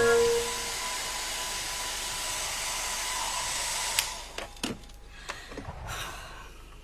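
Electric hair dryer blowing steadily with a faint whine, switched off with a click about four seconds in, followed by a few light knocks.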